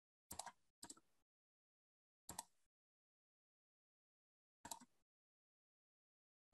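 Four short clicks at a computer, spaced irregularly over a few seconds, with near silence between them.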